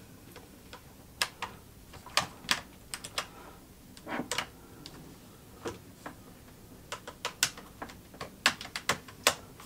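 Irregular sharp clicks of computer mouse buttons and laptop keys as a newly plugged-in gaming mouse is tried out to see if it works.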